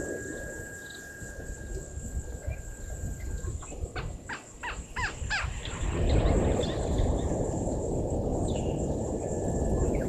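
Outdoor bush ambience: insects drone steadily, and a bird calls a quick run of about eight short falling whistled notes, at about four a second, a little past a third of the way in. A low rumble swells in the second half.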